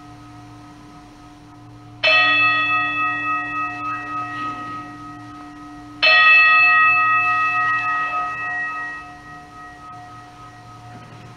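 A liturgical altar bell struck twice, about four seconds apart, each stroke ringing out with clear tones and slowly fading. It marks the blessing with the Blessed Sacrament.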